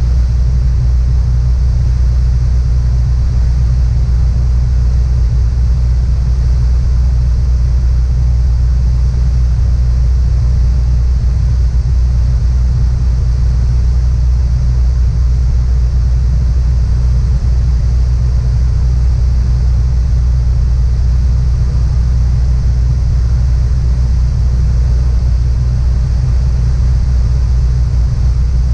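Piper PA-28-161 Warrior II in cruise heard from inside the cabin: the steady drone of its four-cylinder Lycoming engine and propeller, with a constant hiss of air over the airframe.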